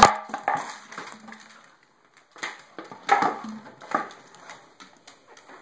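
Empty plastic bottle knocked about on a hardwood floor by a playing dog: one sharp, loud hit at the start, then irregular clattering and crackling of the plastic a few times.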